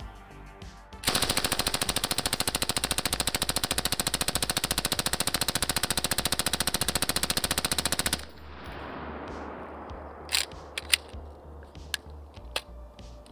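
Suppressed 5.56 mm SAW light machine gun, wearing a Surefire SOCOM556-RC3 suppressor, firing one continuous full-auto burst of about seven seconds at a rapid, even rate. The burst then stops abruptly, leaving a fading rumble and a few sharp clicks.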